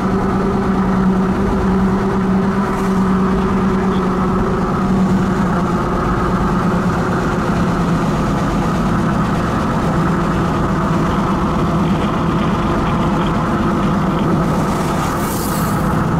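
Chase vehicle's engine and tyres running steadily on a wet highway, heard from inside the cabin as a constant low drone and road rumble. A brief hiss rises over it about fifteen seconds in.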